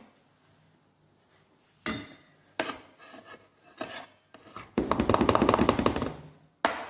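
A knife cutting focaccia in a steel baking pan. From about two seconds in there are a few separate knocks and scrapes of the blade against the tin, then about two seconds of rapid back-and-forth sawing and scraping.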